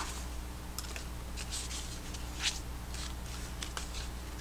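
Paper scraps rustling and sliding as hands leaf through a stack of papers in a cardboard box: a few short, separate rustles over a low steady hum.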